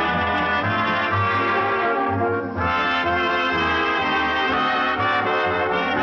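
Brass-heavy band music, with trombones and trumpets playing full chords and the notes changing every second or so.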